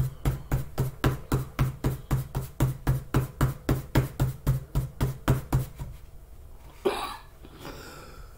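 Rhythmic thumping from the neighbours, about four even beats a second, which stops about six seconds in. A short, brief noise follows about a second later.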